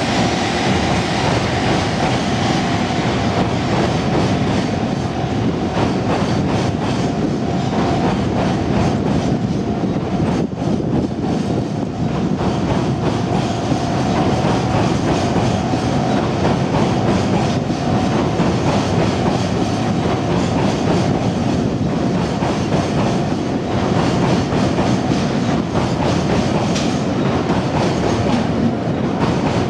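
Freight train rolling past close by, its wheels clacking steadily over the rail joints, with a thin steady high tone running alongside.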